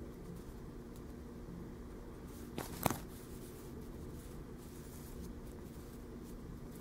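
Faint rustle of a metal crochet hook drawing yarn through stitches, over a steady low room hum, with two small clicks close together near the middle.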